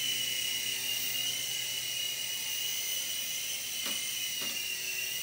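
Toy RC helicopter hovering: a steady high whine from its small electric motors and rotors that wavers slightly in pitch. Two brief knocks come about four seconds in.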